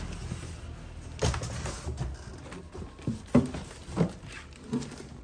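Cardboard box flaps and plastic wrapping being handled during unpacking: scattered rustles and knocks, the loudest about three and a half seconds in.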